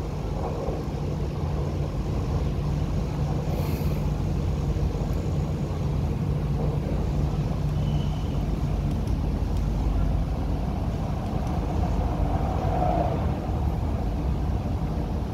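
Running noise of an MTR Q-Train heard from inside the passenger car: a steady low rumble of wheels on rail with a hum from the train's equipment, and a short hiss about four seconds in.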